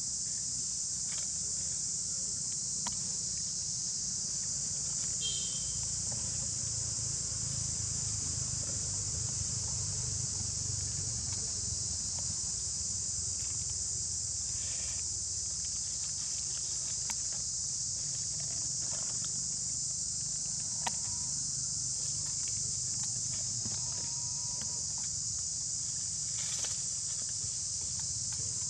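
Steady, high-pitched insect chorus droning without a break, with a low rumble underneath and a few faint clicks and rustles.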